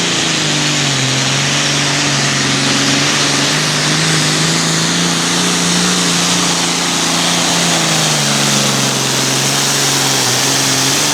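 Hot Farm class diesel pulling tractor at full throttle, dragging the weight sled down the track. The engine pitch sags in the first second as it loads down, holds, then drops again about eight seconds in, over a loud, high rushing noise. The sound cuts off suddenly at the end.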